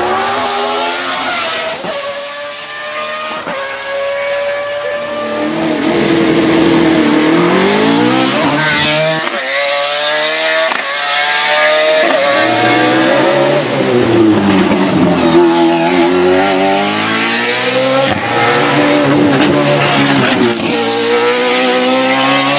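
Judd V8 hillclimb race car at full throttle. The engine note climbs and drops over and over as it shifts up through the gears, with long falling slides where it lifts and changes down, getting louder about six seconds in.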